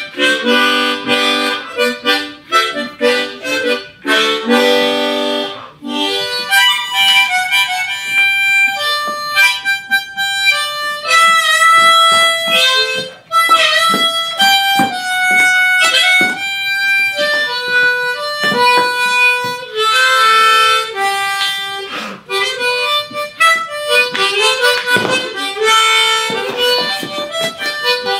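Harmonica played hands-free from a neck holder: a tune moving between full chords and single melody notes, with chords at the start and again toward the end.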